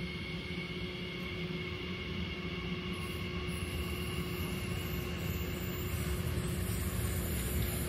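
A train running through the station, a steady rumble with a faint steady whine that slowly grows louder, and more high-pitched hiss from about three seconds in.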